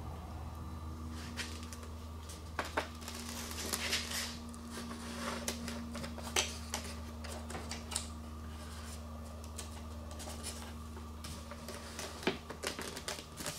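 Foam RC-plane wing panel and its servo extension wire being handled and slid onto the fuselage: scattered small clicks, scrapes and rustles of plastic and foam, over a steady low hum.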